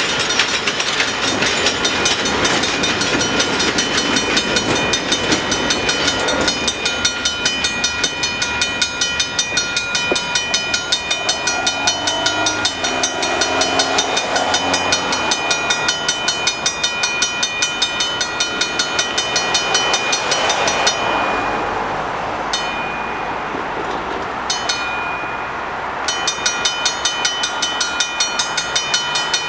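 Railroad grade-crossing bell ringing in even strokes, about two a second, while the crossing stays activated after the train has cleared: a crossing malfunction. A train's rolling rumble fades over the first few seconds. The bell drops out for a few seconds near the end, then starts again.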